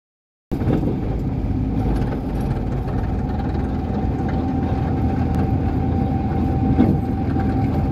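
Vehicle engine running with road noise, heard from inside the cab while driving on a wet road. It is a steady, low rumble with a faint constant whine, starting about half a second in.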